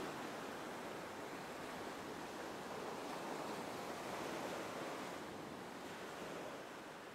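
Ocean surf breaking on a rocky shore: a faint, even rush of water that swells a little in the middle and eases toward the end.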